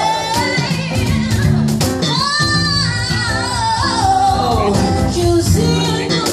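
Live band music: women singing long, bending notes into microphones over guitars and a cajón beat.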